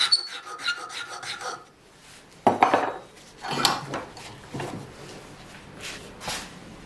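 A hand file rasping across the edge of a wooden knife-handle scale clamped in a bench vise, in quick regular strokes with a thin ringing tone, which stop after about a second and a half. After a short lull come several separate scrapes and knocks as the wooden piece is handled against the vise, the loudest about two and a half seconds in.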